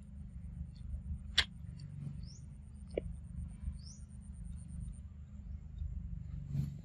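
Two short, rising, high-pitched chirps from a small animal, with a sharp click and a lighter one, over a low steady rumble.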